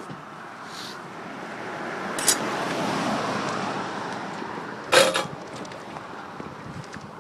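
Wheels rolling over pavement, a rushing noise that swells and then fades as it passes. Two sharp knocks, about two and five seconds in; the second is the loudest sound.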